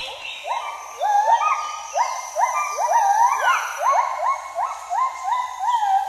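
Agile gibbons duetting: the female's great call, a run of rising, clear whooping notes about two a second, which turn into longer notes that waver up and down near the end.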